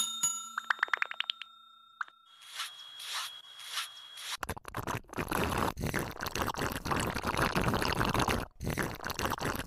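Added ASMR skincare sound effects: a quick run of clicks over a held ringing tone, then a hiss pulsing about three times a second. From about four seconds in, a long stretch of rough, scratchy scrubbing with short breaks, the loudest part.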